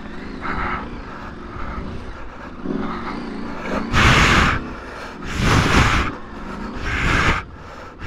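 Adventure motorcycle engine running at low, uneven revs over rocky off-road track, with three louder rushing bursts of noise about half a second each, around four, five and a half and seven seconds in.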